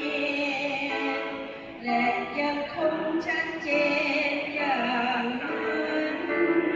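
Music with a melody of long held notes that waver in pitch.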